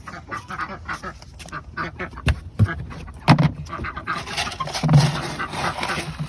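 Domestic ducks quacking and chattering as they are herded along, with louder quacks about three and five seconds in.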